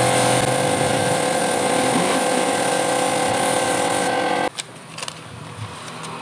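Airbrush air supply running with a steady hiss and a constant mechanical hum, which stops abruptly about four and a half seconds in. After that come faint clicks and handling noises.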